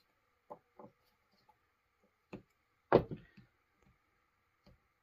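Light clicks and taps of a screwdriver and small chainsaw-carburetor parts being handled on a rag-covered workbench. There are a few scattered taps, with one louder knock about three seconds in, over a faint steady hum.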